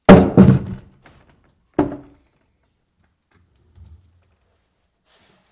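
A hanging show sign falling onto a desk: two heavy thuds in quick succession, a third about two seconds in, then a faint bump near four seconds.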